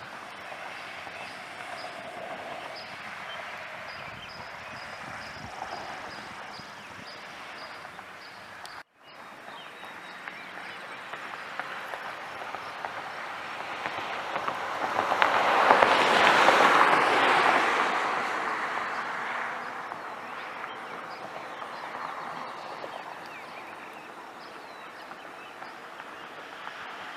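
Steady rain of a thunderstorm, with a louder rush of noise that builds and fades over several seconds around the middle.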